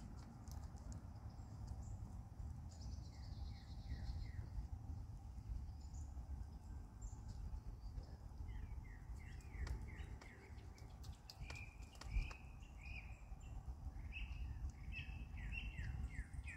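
Small songbirds chirping in quick runs of short falling notes, over a steady low rumble. A few faint ticks and one soft low thump about twelve seconds in.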